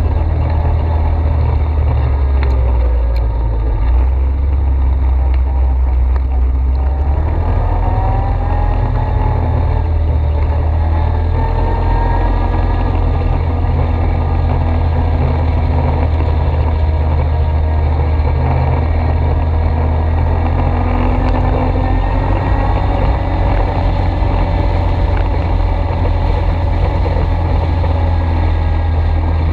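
ATV engine running continuously at a steady, loud level, its pitch climbing and shifting with the throttle about a quarter of the way in.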